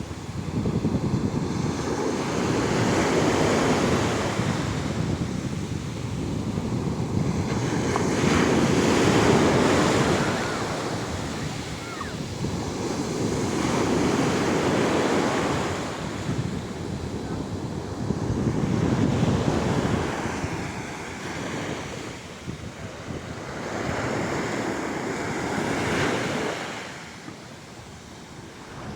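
Sea waves breaking and washing up the shore, swelling and fading about every five seconds, with wind buffeting the microphone.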